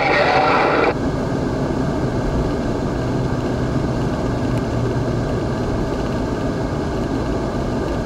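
Steady road noise of a car cruising at highway speed, heard from inside the cabin: tyre rumble with a low engine hum. A voice is heard for the first second, then cuts off.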